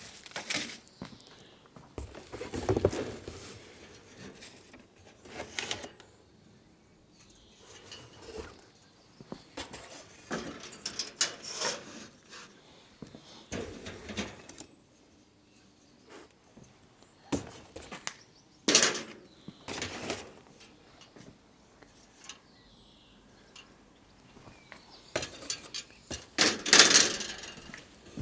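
Parts of a model railway bridge kit being unpacked and handled: irregular clicks, knocks and rustling, with louder knocks about three seconds in, around the middle and near the end.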